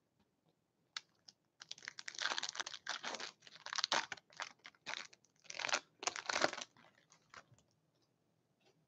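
A foil hockey-card pack wrapper being torn open and crinkled: a run of sharp rustling tears over several seconds, then a few faint clicks as the cards are handled.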